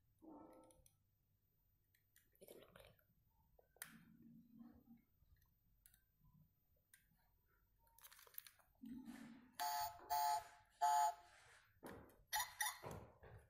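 Faint clicks and rustles of a die-cast toy car being handled over bubble wrap. About ten seconds in come three short, loud electronic beeps, followed by a few sharper clicks.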